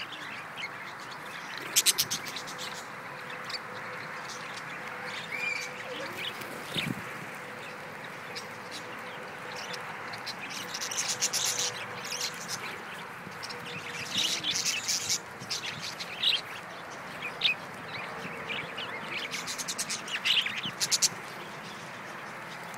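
A flock of budgerigars chattering, with bursts of high chirps and warbles that come and go over a steady background hiss.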